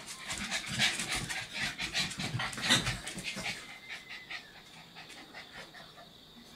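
Puppy panting in quick, even breaths, louder for the first three seconds or so, then fainter.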